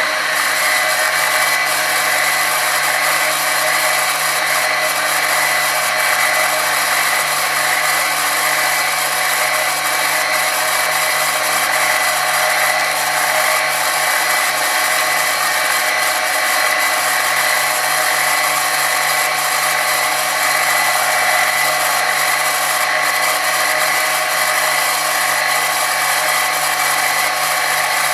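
Pillar drill running steadily, loud, with a constant whine and hum, while drilling holes through thin aluminium sheet.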